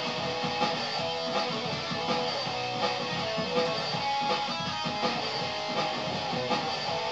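Stratocaster-style electric guitar being played, with accents on a steady beat about every three-quarters of a second.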